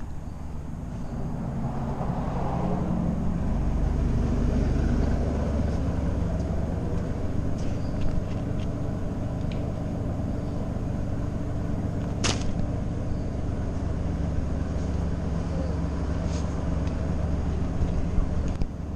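A steady low engine rumble with a constant hum, swelling a little over the first few seconds. There is a single sharp click about twelve seconds in.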